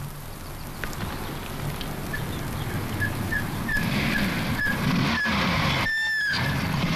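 Lorry engine running as the vehicle pulls away over rough ground, growing louder partway through. Over it comes a regular short high squeak or peep about three times a second, then one louder high tone lasting about half a second near the end.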